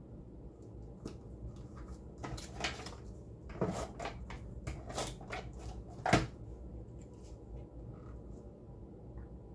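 Paper handling on a tabletop as small photo prints are lifted, run over with a handheld adhesive tape runner and pressed onto cardstock: scattered rustles, short rasps and taps, the loudest a sharp knock about six seconds in.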